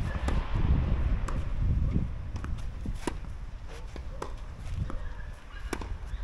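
Tennis ball being struck and bouncing: a string of sharp knocks at irregular intervals, roughly one every half second to a second, with footsteps on the court. A low rumble is loudest in the first two seconds.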